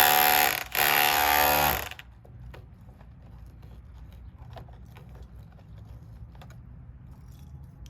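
Electric chipping hammer running in two bursts of about a second each, a loud steady buzz as it chisels the covering off a rock wall, followed by faint scattered ticks and knocks.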